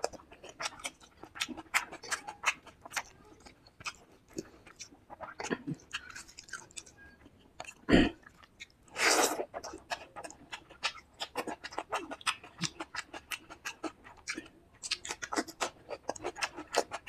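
Close-miked chewing of rice and fish curry: many quick wet mouth clicks and smacks. A dull thump about eight seconds in and a short loud breathy burst just after it, then a fast run of smacking near the end.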